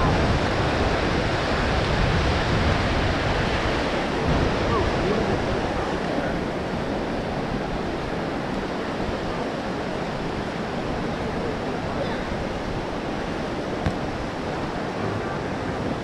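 Ocean surf washing ashore, a steady rushing noise.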